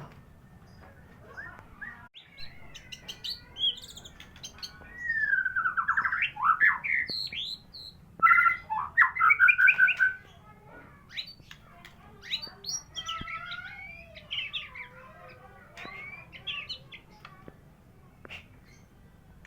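White-rumped shama (murai batu, Medan strain) singing a varied song of rich whistles, quick sweeping notes and trills, loudest in a run of phrases about five to ten seconds in, then softer scattered notes.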